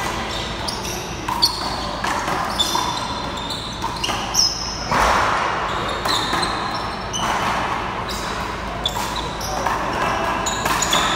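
A handball rally: several sharp smacks of the small rubber ball off hands, wall and floor, ringing in a large hall, with sneakers squeaking on the court in short high chirps.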